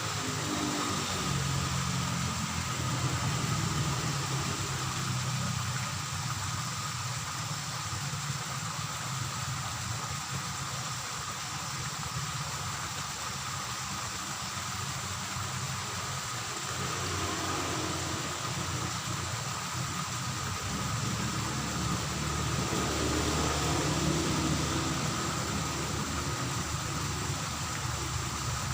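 Low motor-vehicle engine rumble that swells twice, once early and again about two-thirds of the way through, over a steady hiss with two constant high-pitched tones.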